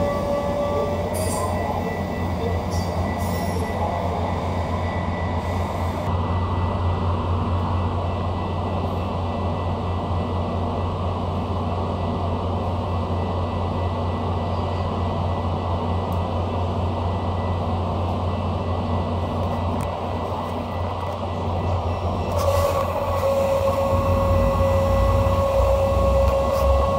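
Metra bilevel commuter train at a station platform, running with a steady low hum as it stands. A high brake or wheel squeal fades about a second in and sets in again about 22 seconds in as the train eases along.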